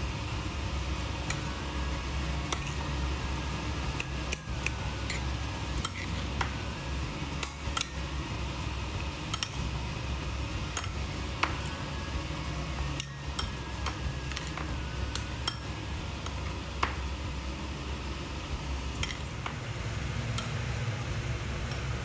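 A metal spoon stirring a mashed eggplant mixture in a bowl, clinking and scraping against the bowl with scattered sharp clicks, over a steady low hum.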